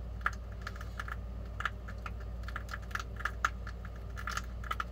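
Light, irregular clicking and ticking, a few sharp clicks a second at uneven spacing, over a low steady hum.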